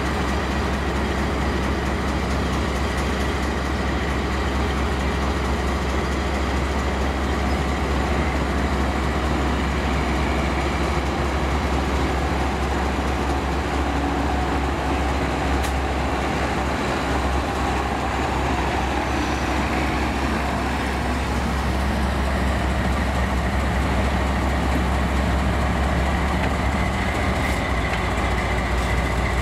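Diesel engine of a large four-wheel-drive farm tractor running steadily as it drives past on the road. Near the end it gives way to a diesel locomotive's engine running as the locomotive hauls freight wagons by.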